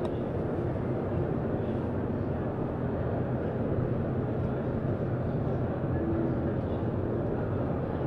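Steady, low background din of a busy trade-show hall, an even rumble with no clear voices.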